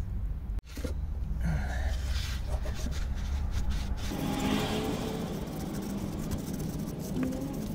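Tissue wrapped round a screwdriver rubbing and twisting inside the dog-tooth bore of a rear-wheel-steering unit, wiping out old grease, over a steady low rumble.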